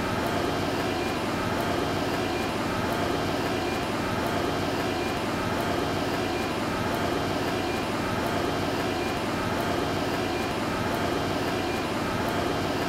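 Steady mechanical drone with a low hum and a faint warble that repeats about once a second.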